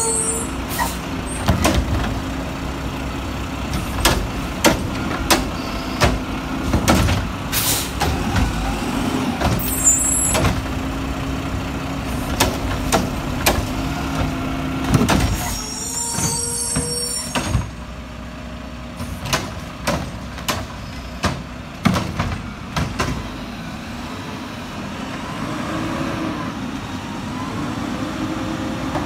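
Mack front-loading garbage truck with a Curotto-Can arm working wheeled carts: a steady engine and hydraulic drone under repeated clunks and bangs as carts are gripped, tipped and set back down. There are hisses of released air about ten seconds in and again after about fifteen seconds. The engine drops to a quieter steady running in the last part.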